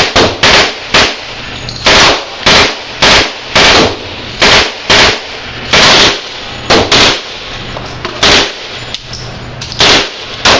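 Gunshots at a shooting range: a string of about fourteen sharp, loud shots at uneven spacing, some close together and others a second or more apart, each with a short ringing tail.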